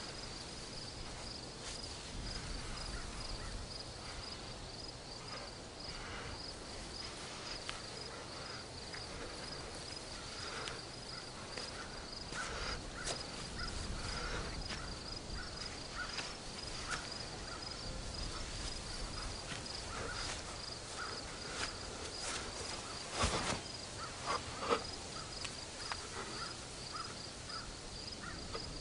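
Crickets chirping in a fast, even pulse, the steady background of a night garden. A few soft rustles and knocks sound over it, the loudest about three-quarters of the way through.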